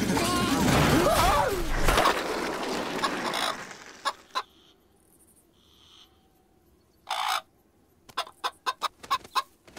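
Cartoon chicken squawking and clucking: a loud, noisy squawking commotion over the first three seconds or so, a short squawk about seven seconds in, and a quick run of clucks near the end.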